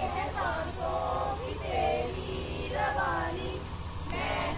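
A group of young men and women singing or chanting a song together in phrases, over a steady low rumble.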